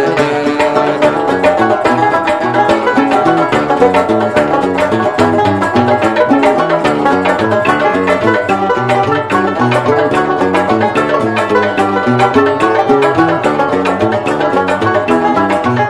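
Algerian chaabi instrumental interlude: a fast, busy plucked-string melody on mandole and banjo, with a steady driving beat of plucked and struck notes.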